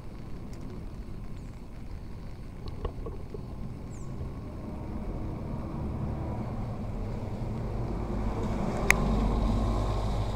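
A motor vehicle approaching and passing, its engine and tyre rumble swelling to a peak near the end. A single sharp click comes just before the peak.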